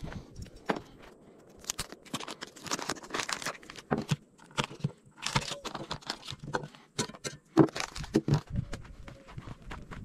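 Paper wrapper of a block of butter tearing and crinkling as it is unwrapped and handled, in short irregular rustles with a few sharper clicks.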